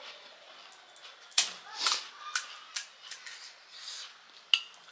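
Eating sounds close to the microphone: crisp panipuri shells crunching and being chewed, heard as a handful of sharp, separate crunches and smacks, the loudest about a second and a half in.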